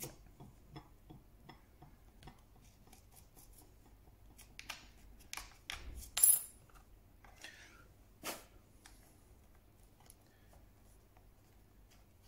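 Quiet workbench handling: hands brushing and rubbing over a wooden panel, with scattered light clicks and taps and one sharp, ringing metallic clink about six seconds in, then a single knock a couple of seconds later.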